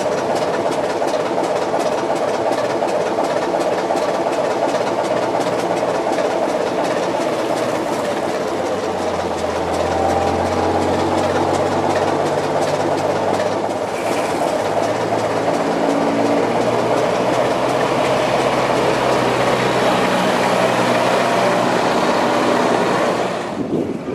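Diesel engines running steadily: a heritage diesel locomotive standing alongside and a Scammell Scarab three-wheeled lorry driving across the yard, the engine note shifting in pitch about ten seconds in and again around fifteen seconds.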